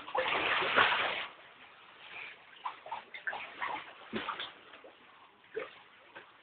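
Water splashing: a loud rush of about a second at the start, then scattered small splashes and sloshes.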